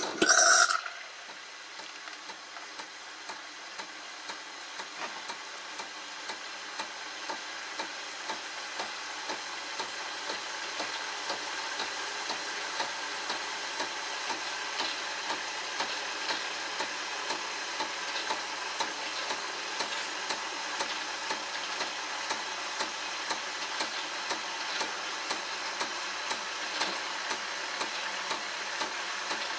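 De'Longhi Lattissima 680 Nespresso machine frothing milk and pouring it through its milk spout into a glass: a steady frothing hiss that swells slowly over the first ten seconds, with a regular light pulse a little over once a second.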